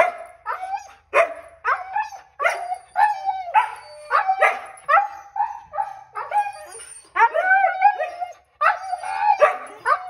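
Excited Siberian huskies 'talking': a steady string of short barking and howling calls, about two a second, some rising and falling in pitch.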